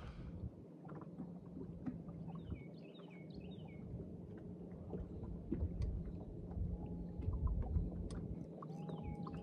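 Quiet open-water ambience on a boat: a low steady rumble of water and wind against the hull with a faint steady hum and a few small clicks. A bird chirps a quick run of falling notes about two and a half seconds in and again near the end.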